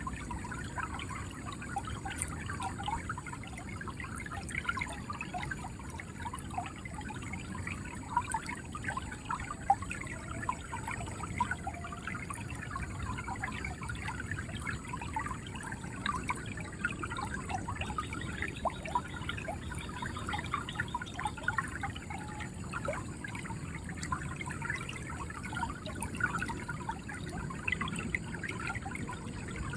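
River water flowing steadily, a low rush under many small gurgles and splashes.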